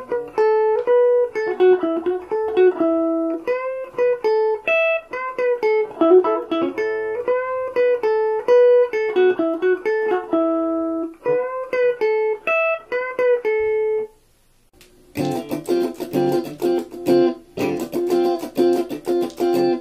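Stratocaster-style electric guitar played unaccompanied: a single-note lead melody with notes bent upward, then after a short break about fourteen seconds in, fast rhythmic chord strumming.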